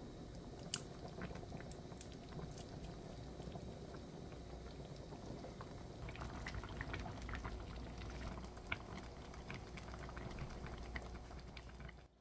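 Thick, creamy rosé-sauce braised chicken (jjimdak) simmering in a frying pan, bubbling with scattered small pops and plops that grow more frequent about halfway through.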